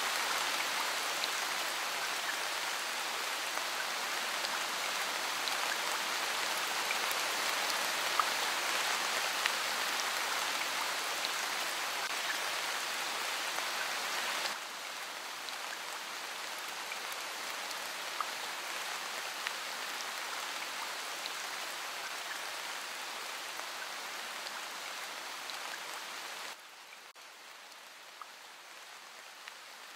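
Steady hiss of falling water, flecked with small drip-like ticks. It drops abruptly in level about halfway through and again near the end.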